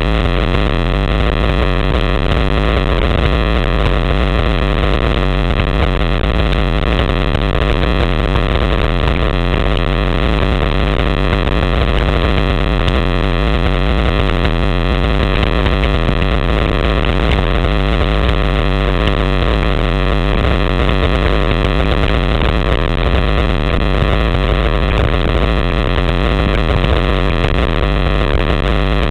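Loud, steady wind rush buffeting the microphone of a handlebar-mounted camera on a road bike at descent speed, a constant roar with no breaks.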